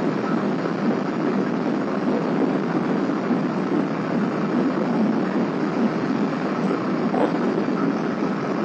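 Steady rushing wind buffeting the microphone on a ship's open deck, a rough, even noise without any distinct tone.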